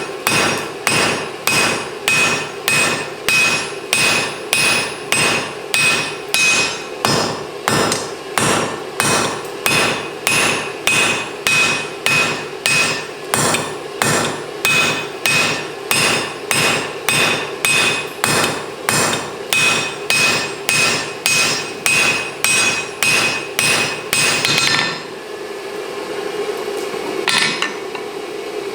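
Hand hammer striking hot mild steel on an anvil at a steady beat of about two blows a second, each blow ringing, as the tong jaw is forged into a triangle. The hammering stops about 25 seconds in, leaving a steady hum.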